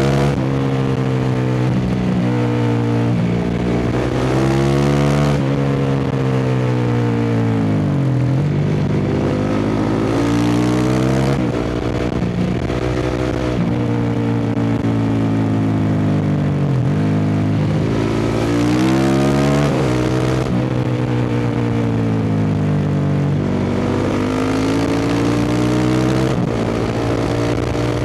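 Honda CRF450R single-cylinder four-stroke engine through a full Akrapovič dual exhaust, riding on the road: the engine note climbs and falls over and over as the bike accelerates and backs off, with two deep drops in revs.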